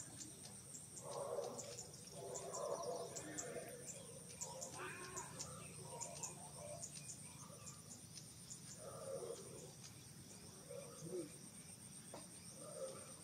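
Insects buzzing in a steady high-pitched drone, with quick chirps above it and faint scattered sounds lower down every second or two.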